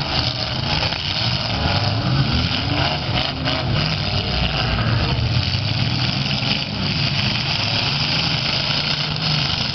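Several demolition-derby cars' V8 engines running together in a steady mix, some revving with rising and falling pitch.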